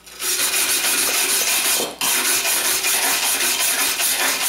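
Hand wire brush scrubbing rust off a steel plate in rapid back-and-forth strokes, pausing briefly about two seconds in. This is surface cleaning of the rusty plate before welding.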